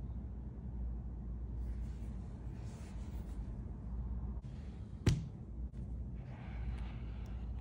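Gloved hands handling a cardboard product box: soft rustling and scuffing of glove fabric on the box, with a single sharp click about five seconds in as the box's two halves are pulled apart, then more rustling. A steady low hum sits underneath.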